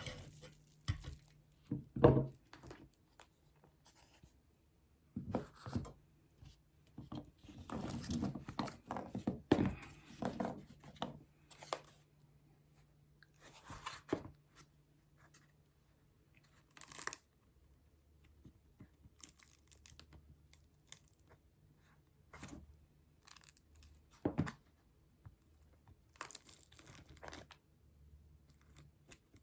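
Homemade slime being squeezed, stretched and pulled apart by hand, giving sticky tearing, crackling and popping sounds in irregular bursts with short pauses between.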